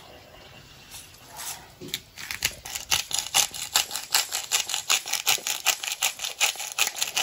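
A salt grinder being twisted to grind Himalayan pink salt, giving a rapid run of short gritty crunches, about five a second, from about two seconds in.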